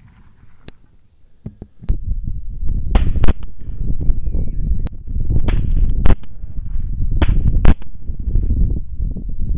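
Suppressed rifle shots at hogs: three pairs of sharp cracks, about 3, 5.5 and 7.3 seconds in, each shot followed about half a second later by a second report, as a bullet striking at range would give. A steady low rumble runs underneath from about two seconds in.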